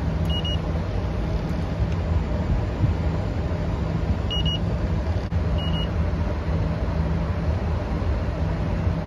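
Electronic refrigerant leak detector giving a few short high beeps as its probe is run over the copper pipework during a leak test. Under it is the steady low hum of the running package air-conditioning unit.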